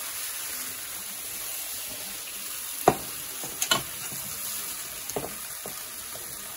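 Green bell peppers and mushrooms sizzling steadily in a hot cast-iron skillet, with a metal spatula knocking against the skillet and a steel bowl a few times as they are scooped out; the loudest knock comes about three seconds in.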